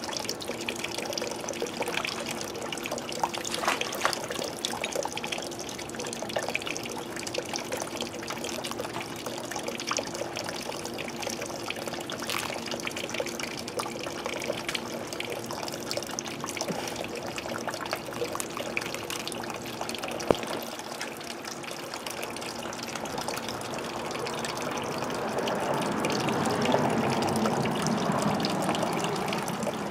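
Swimming pool water running and trickling, with a steady low hum underneath from the pool's circulation; the water sound swells for a few seconds near the end.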